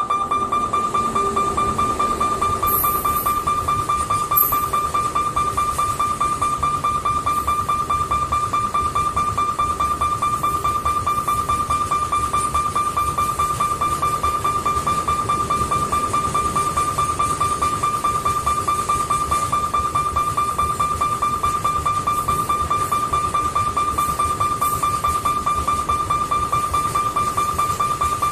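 A level-crossing warning bell rings continuously in one steady high tone over the rumble of a long loaded freight train rolling past.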